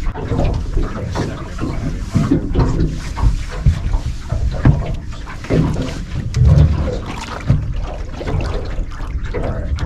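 Irregular knocks, rumbles and splashing on a small fishing boat while a hooked catfish is fought to the boat.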